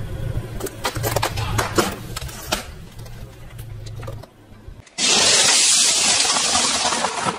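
Car tyre crushing a plastic ice-cream tub: sharp crackling and cracking of plastic over a low engine hum. About five seconds in, a sudden loud, steady crunching rush as the tyre rolls over a packed bag of M&M candies.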